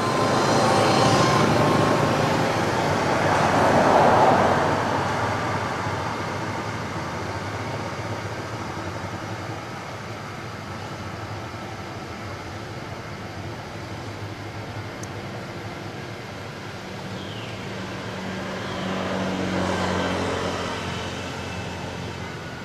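Passing road vehicles: engine and tyre noise swells up and fades, loudest about four seconds in and again near the end, when a low engine hum rises and falls, over a steady background of traffic noise.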